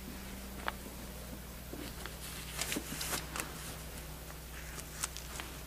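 Faint handling noises: a few light clicks and rustles, most of them around the middle and one near the end, over a steady low hum.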